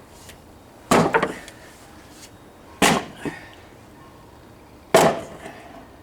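Three hard hammer blows on the old wooden swing's frame, about two seconds apart, each dying away quickly: knocking a piece loose during the teardown.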